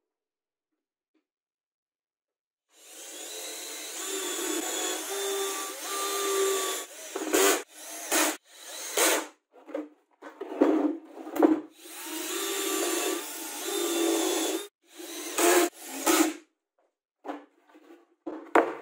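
Wood scraping on wood in long rubbing strokes of several seconds, with shorter strokes in between; the first starts about three seconds in.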